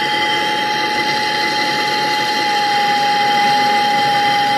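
MAPP gas torch burning with a steady hiss and a steady high tone in it, its flame held on a copper tube to heat it red for brazing.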